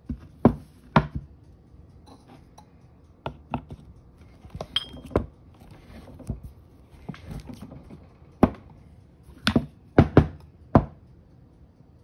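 Metal clinks and knocks from handling a stainless steel espresso portafilter and an aluminium coffee distributor/tamper. About a dozen sharp hits come at uneven intervals, one of them with a brief ringing note near the middle, with light rustling in between.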